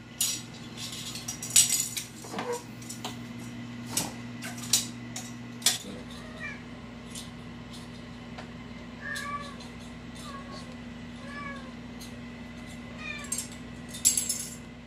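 Kittens mewing in short, thin calls, several in a row through the middle of the stretch. A plastic spoon clicks and clatters on a tile floor in the first few seconds and again near the end as the kittens bat it about.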